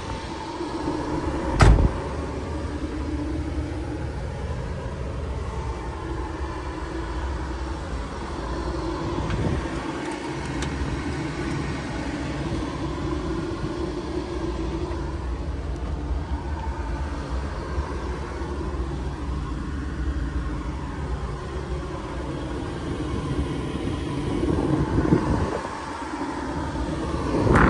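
DAF XF480's PACCAR MX-13 inline-six diesel idling, a steady low rumble heard from inside the cab. A single sharp knock comes about two seconds in.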